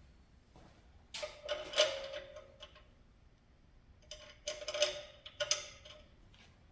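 Metal parts clinking and clattering in two bursts, about a second in and again near the middle, each with a brief metallic ring: steel pieces of a belt grinder work rest being handled and fitted.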